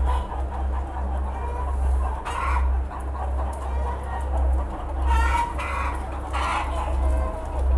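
A flock of broiler breeder hens and roosters clucking and calling, with a few louder calls standing out, over a steady low hum.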